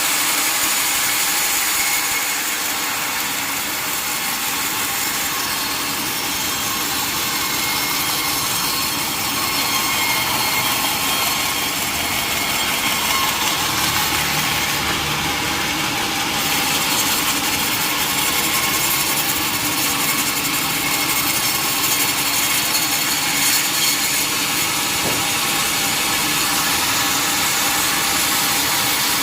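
Sawmill blade cutting through a mahogany log: a steady sawing noise, mostly high in pitch, that runs on without a break.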